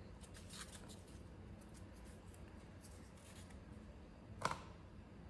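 Faint rustling and scraping of small adhesive stickers being handled and peeled off their backing sheet, with one short, sharp click about four and a half seconds in.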